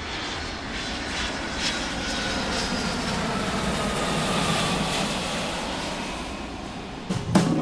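Airplane engine noise: a steady rush with a faint, slowly falling whine, swelling toward the middle and easing off.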